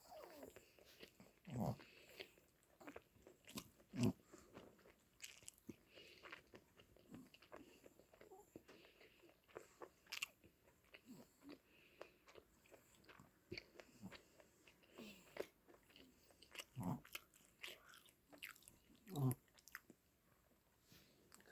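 Close-up eating sounds of a Korean hot bar (fish-cake snack bar) being bitten and chewed: scattered soft mouth clicks with a few louder bites.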